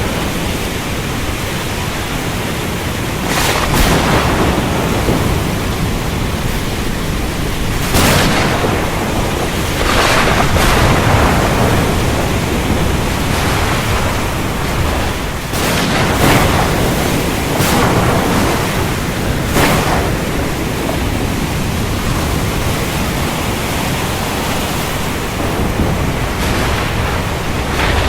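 Heavy rain hissing steadily, with several sharp cracks of thunder scattered through it.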